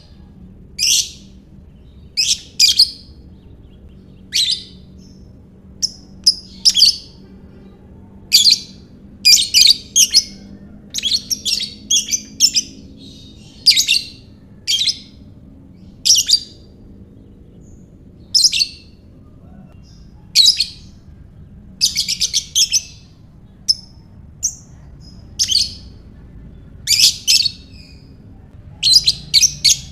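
Lovebird calling with short, shrill chirps in irregular bursts, one or several calls at a time, every second or two.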